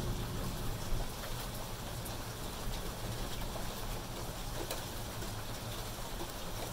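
Steady rain falling, a continuous hiss with scattered faint drop ticks over a low steady rumble.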